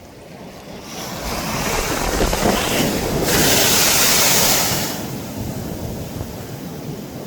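Sea waves breaking on the shore: the surf swells about a second in, crashes loudest in the middle, then washes out and eases off.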